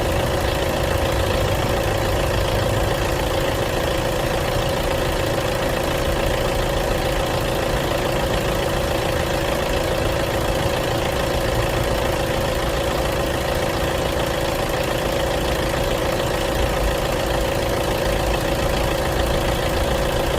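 Diesel car engine idling steadily with its knocking clatter, unchanging in speed.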